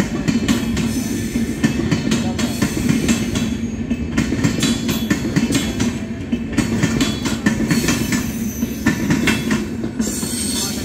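Indian Railways Humsafar Express passenger coaches rolling past in a steady rumble, with quick clicks of the wheels running over rail joints.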